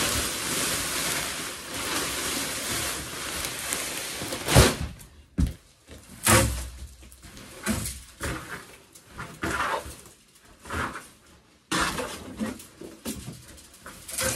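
Wood shavings pouring out of a sack onto a wooden floor, a steady rustling hiss for about four and a half seconds, followed by two thumps. Then a leaf rake scrapes and spreads the shavings in separate strokes, about one a second.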